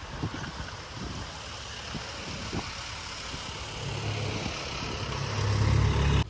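Strong wind buffeting the microphone: a steady rush with low rumbling gusts that swell much louder near the end.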